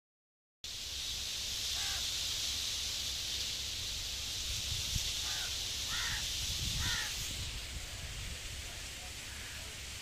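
Wind in a leafy tree: a steady rustling hiss that eases off about seven seconds in, over a low wind rumble on the microphone. A bird calls four times in the first seven seconds, with fainter calls after.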